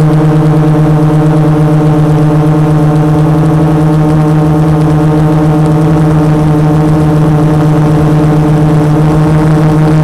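Brushless motors and 12-inch carbon fibre propellers of a 450 quadcopter, heard through its onboard camera: a loud, steady hum at one unchanging pitch as it hovers.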